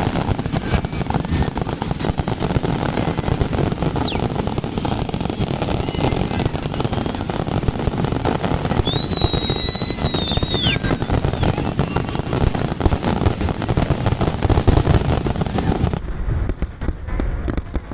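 Fireworks display: a continuous dense crackle of bursts and pops, with two high whistles, each held a second or two and then dropping in pitch, about three seconds in and again around ten seconds in.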